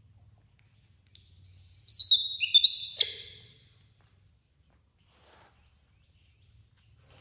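Baby monkey screaming: a run of high-pitched squealing calls, the notes stepping down in pitch, starting about a second in and lasting about two and a half seconds. A hungry infant's call for its mother.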